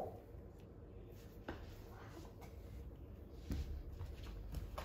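Quiet room with a few faint taps and rustles from plastic toy figures being handled on a carpet, one about a second and a half in and another about three and a half seconds in.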